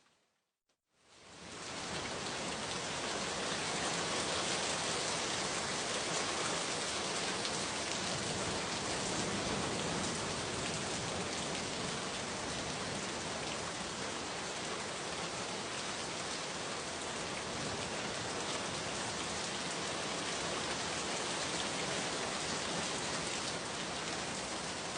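Steady rain falling, an even hiss of drops. It fades in from a brief silence in the first second or two.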